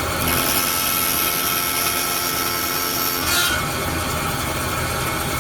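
Bandsaw running and cutting a small piece from a thin clear polycarbonate sheet. A high hiss from the blade in the plastic stops about three seconds in, and the saw keeps running.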